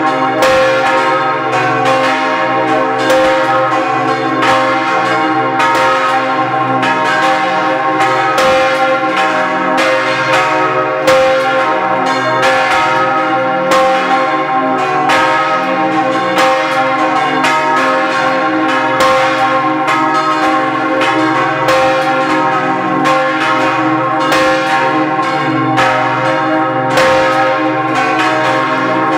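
Several parish church bells ringing together in a full peal. Their strikes come irregularly, a couple each second, and overlap into one continuous ring.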